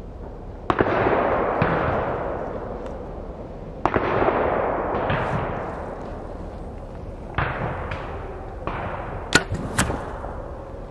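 Two distant gunshots, each with a long echoing tail, about a second in and again about four seconds in. Near the end a compound bow is shot: a sharp crack at the string's release, then the broadhead-tipped arrow striking the target a moment later.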